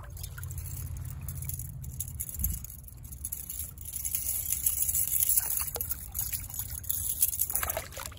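Water trickling and splashing as a chain stringer holding a rainbow trout is lifted out of shallow ditch water and dipped back, louder in the second half, with a few sharp splashes near the end.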